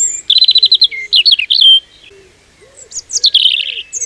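European robin singing its spring-and-summer territorial song: high, rapid phrases of trills and sliding notes. One run of phrases over the first couple of seconds, a pause of about a second, then another phrase and a fresh run near the end.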